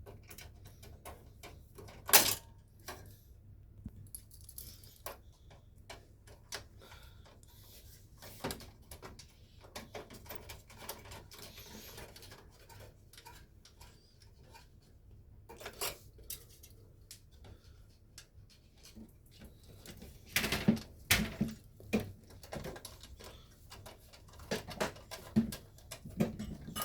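Scattered clicks, taps and knocks of PC hardware being handled and fitted into a case, with a sharp knock about two seconds in and busier bursts of clicking near the end.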